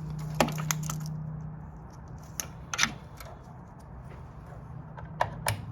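Sharp metal clicks and clanks in three small clusters, near the start, mid-way and near the end, from parts and tools being handled while a shield is worked over a gas water heater's new burner and valve. A steady low hum runs underneath.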